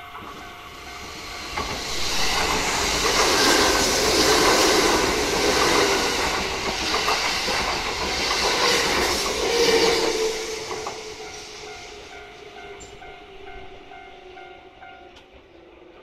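Level-crossing warning bell ringing in a steady repeating beat, then a Kintetsu Nara Line train passes close by, loudest from about two to ten seconds in before fading away. As the train recedes the crossing bell is heard again and stops near the end.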